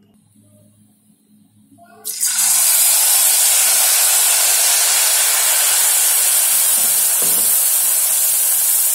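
Wheat-flour malpua batter frying in hot ghee in a kadhai: faint at first, then about two seconds in a sudden loud sizzle starts as the batter goes into the ghee, and it carries on steadily.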